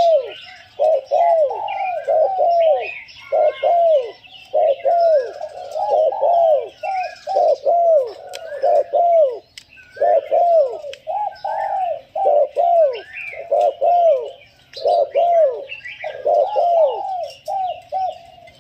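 A spotted dove kept as a decoy cooing over and over, short arched coos in quick runs with brief pauses between. Smaller birds chirp faintly higher up.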